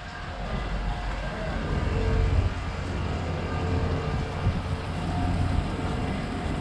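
A steady low rumble of a moving vehicle, with wind noise on the microphone.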